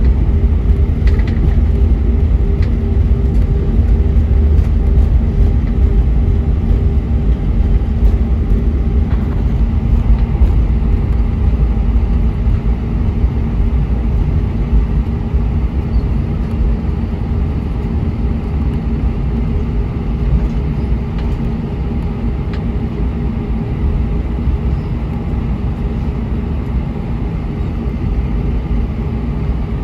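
Cabin noise of an Airbus A320-232 taxiing, heard from a seat over the wing: a steady low rumble with the IAE V2500 engines humming at idle. It grows a little quieter about halfway through.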